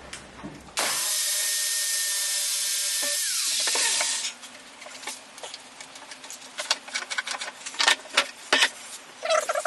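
A power tool runs in wood for about three seconds, with a steady high whine that falls as the motor winds down. A series of sharp knocks and clicks follows.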